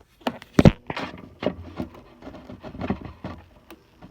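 Plastic clicks and knocks from handling a watch winder's small motor and pulling out its plug, a sharp knock about half a second in followed by a run of lighter irregular clicks.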